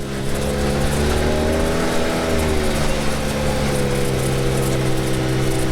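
Vehicle engine running at a steady, moderate throttle while driving slowly over the yard, its pitch rising a little about two seconds in and easing back down.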